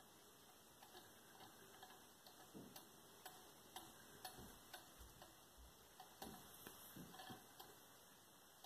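Faint, irregular ticking, roughly two clicks a second: the copper wire loop of a homopolar motor spinning around an AA battery, its ends ticking against the disc magnet as they brush past.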